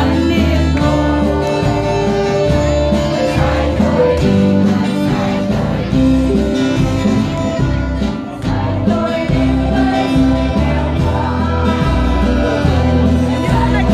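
Children's choir singing a church song together, over instrumental accompaniment.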